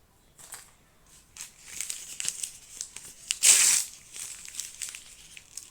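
Small plastic blind-bag wrapping crinkling as it is handled and opened, with one louder rip about three and a half seconds in.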